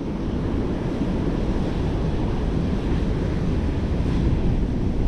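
Ocean surf washing on the shore with wind buffeting the microphone, a steady rushing noise with a heavy low rumble.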